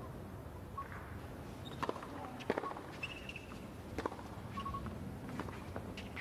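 Hushed crowd hum under a handful of sharp, irregular ball bounces on a hard tennis court as the server readies to serve, with a few short, high chirps.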